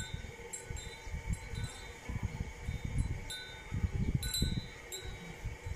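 A fork pricking pizza dough: soft taps as the tines go through, with short metallic clinks ringing off the pan beneath, irregular, about eight of them.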